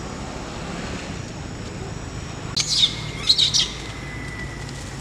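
Bird chirping: a cluster of quick high-pitched chirps a little past halfway, with a thin steady high tone held for about two seconds alongside and after them.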